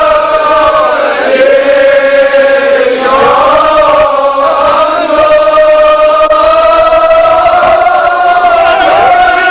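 A congregation of men chanting together in long held notes, the pitch dipping a couple of times before settling into a steady tone.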